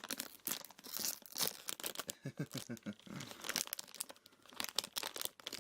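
A sealed blind bag being torn open along its tear strip and crinkled as it is pulled apart, a quick run of short crackles and rips.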